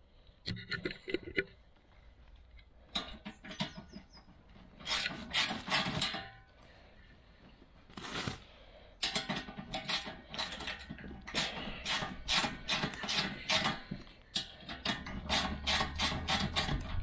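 Ratchet spanner clicking in short bursts as the bolts at the end of a stainless steel bull bar are undone, with the bar's plastic wrap crinkling. The clicking runs almost without a break from about halfway through.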